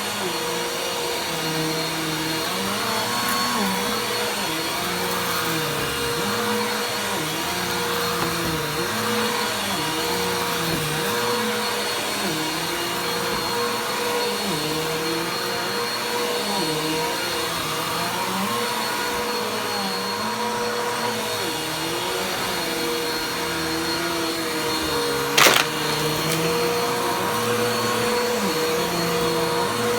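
Vacuum cleaner running continuously, its motor pitch wavering up and down every second or two. A single sharp knock near the end.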